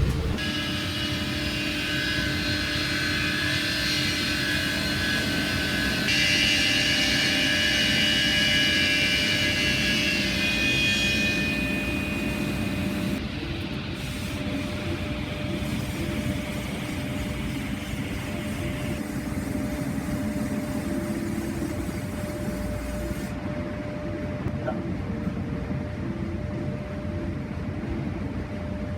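Sawmill machinery running steadily, with a high-pitched whine over it that grows louder about six seconds in and dies away near twelve seconds, leaving a lower steady hum.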